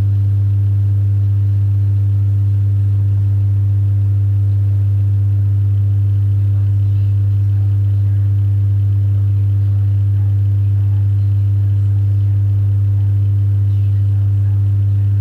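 Loud, steady low electrical hum at a single unchanging pitch with faint higher overtones, constant in level throughout.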